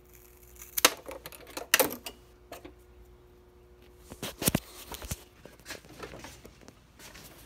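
A string of sharp clicks and clattering knocks from hand tools and the phone being handled over a cluttered metal toolbox. The loudest come about a second in, near two seconds, and twice around four and a half to five seconds.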